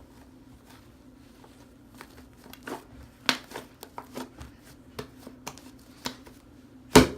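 Hands squishing and poking fluffy slime, giving a string of sharp clicks and pops that start about two seconds in, the loudest just before the end, over a steady low hum.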